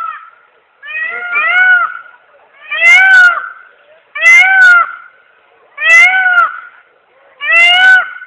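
Peacock calling loudly and repeatedly, about one call every one and a half seconds: the end of one call, then five more, each rising and falling in pitch.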